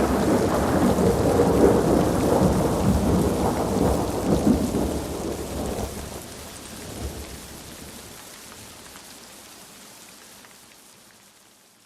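Rain with rolling thunder, loudest for the first few seconds, then fading out steadily to nothing near the end.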